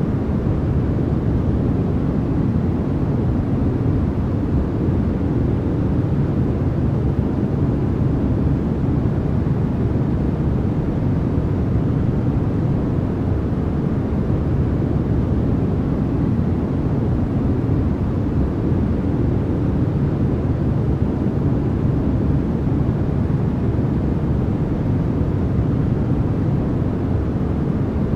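Steady, unbroken noise of the kind played for sleep and focus, sold as white noise. Most of its weight is low in pitch, with little hiss on top.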